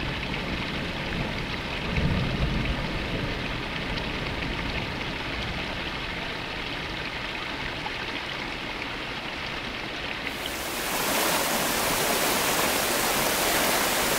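Flowing river water and rain making a steady rushing noise. About ten seconds in, a brighter, louder hiss joins it.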